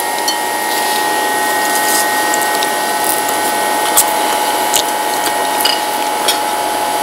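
Steady mechanical whirring with a constant high hum, and a few light clicks of a fork on a plate.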